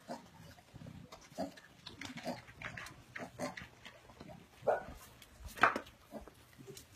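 A group of animals including a pig feeding together at a tray of vegetables: chewing, snuffling and short grunts. Two louder grunts come near the end.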